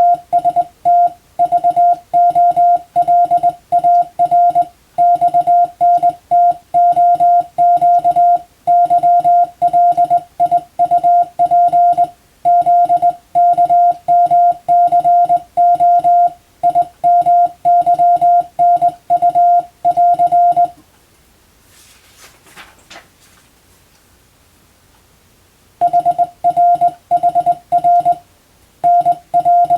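Morse code (CW) sent as a single steady beep, keyed on and off in short dots and longer dashes at an even practice speed. The sending stops for about five seconds a little past two-thirds of the way through, then starts again.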